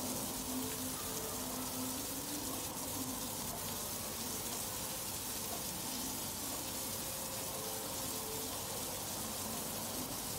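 Skewered marinated prawns sizzling steadily in oil in a shallow frying pan.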